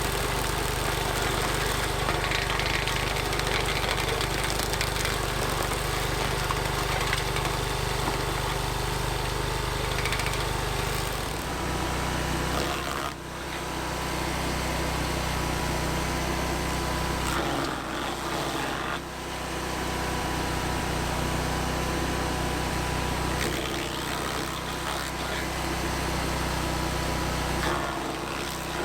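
Vermeer SC362 stump grinder's engine running steadily, its low note shifting about 11 seconds in, with brief dips about 13 and 19 seconds in.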